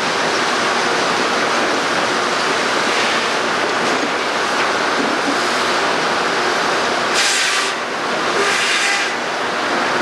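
Sawmill machinery running, a loud steady mechanical din, with two short bursts of hiss about seven and eight and a half seconds in.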